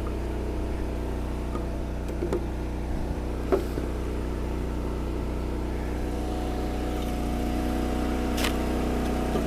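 Eastonmade 22-28 firewood processor's engine running steadily, with a few sharp knocks about two, three and a half and eight seconds in. About two-thirds of the way through, a higher steady whine joins and the running gets slightly louder.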